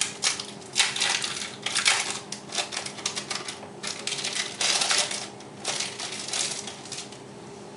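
Plastic food packaging being crinkled and handled in irregular crackling bursts, like a wrapper being pulled open; it stops about seven seconds in.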